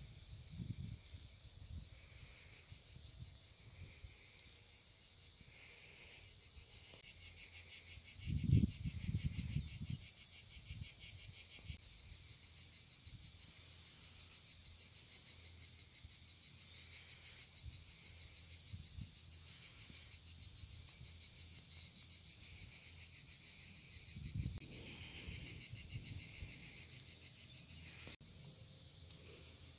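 Insects singing in the grass: a high-pitched, steady pulsing chorus that grows louder about a quarter of the way in. Two low rumbles, the louder about a quarter in and another near the end.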